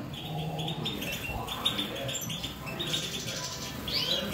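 European goldfinches twittering as a flock, many short high chirps in quick succession.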